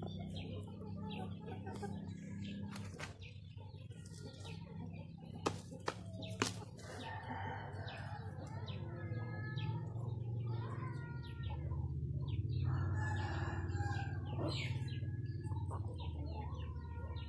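Black hens and a rooster clucking as they feed on leafy greens, with rustling of leaves and a few sharp taps about a third of the way in.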